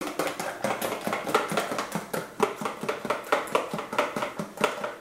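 Raw eggs being beaten lightly by hand in a plastic tub: a utensil clicking and slapping rapidly and regularly against the tub's sides and bottom, several strokes a second.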